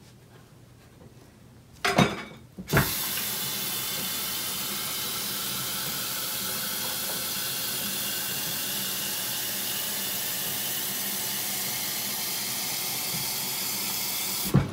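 A kitchen tap running steadily as the Keurig's water reservoir is filled, starting after a couple of knocks about two seconds in and ending with a sharp knock near the end.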